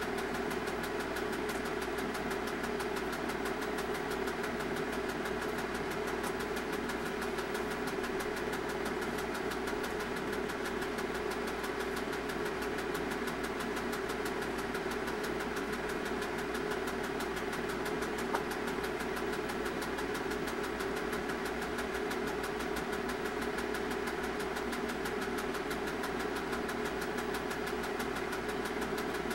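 Film projector running: a steady mechanical whirr with a fast, even ticking from the film mechanism, unchanging throughout.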